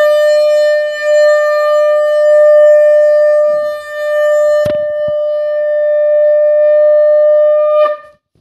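Conch shell (shankha) blown in one long, loud blast on a single steady note, held for about eight seconds before it cuts off near the end. A brief click sounds about halfway through.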